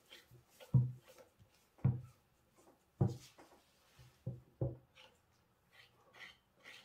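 Five dull thumps over about four seconds, with faint rustling and light ticks between them.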